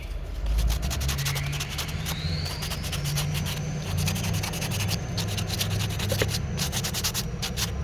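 Hand tool scraping wood in quick, repeated strokes as a small carving is shaped, with a faint rising whistle early on.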